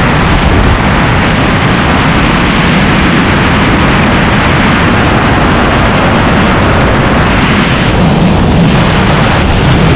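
Loud, steady rush of wind buffeting the camera microphone of a wingsuit flyer in high-speed flight.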